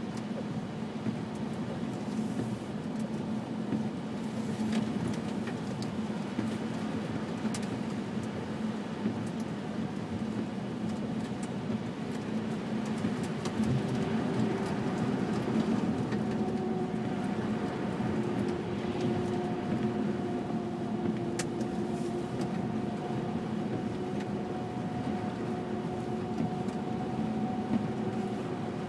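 A car being driven, heard from inside the cabin: a steady drone of engine and tyre noise. About halfway through, a faint steady humming tone joins it, and scattered light ticks occur throughout.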